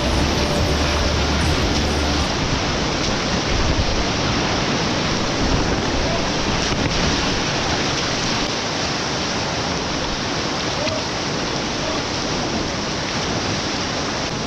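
Steady rush of river water, with background music that stops about two seconds in.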